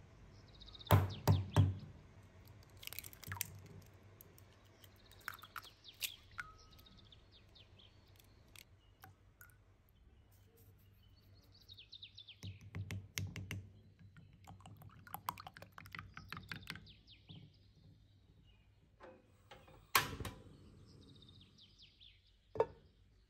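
Kitchen handling sounds: eggs knocked and cracked against a ceramic bowl and dropped in, a run of sharp taps and clicks in small clusters. Birds chirp faintly in the background, and a spoon clicks against a frying pan near the end.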